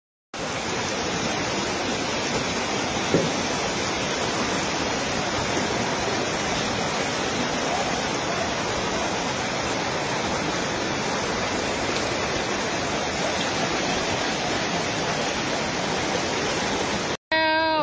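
Fast-flowing muddy floodwater rushing through a flooded street: a steady, even rush of water, with one brief knock about three seconds in.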